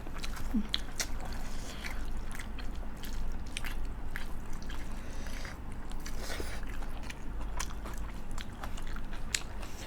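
Close-up eating sounds of a rice and chicken curry meal: chewing and wet mouth smacks, with many small sharp clicks and crunches scattered throughout.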